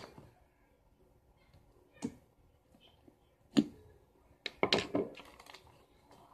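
Hands working a large mound of slime on a table, with a few sharp clicks and taps: one about two seconds in, the loudest about three and a half seconds in, and a quick cluster near five seconds.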